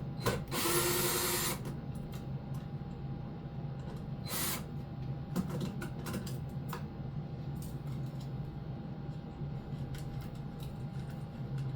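A power drill runs for about a second, then briefly again about four seconds in, with small clicks and knocks of handling in between. A steady hum sits underneath.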